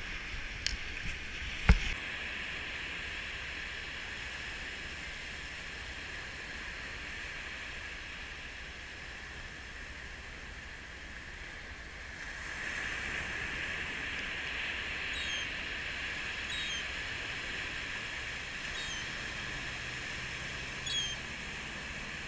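Steady hiss of surf washing over wet sand, with a few clicks and one sharp knock about two seconds in. Later the rush grows a little louder, and four short, falling gull calls come through it a second or two apart.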